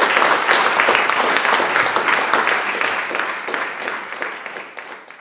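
Audience applauding: dense clapping from many hands that fades gradually toward the end.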